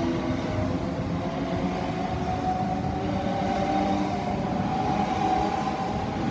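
Southeastern Class 395 Javelin electric multiple unit pulling out of the station: a steady electric traction-motor whine whose pitch edges slowly upward as it gathers speed, over the rumble of wheels on rail.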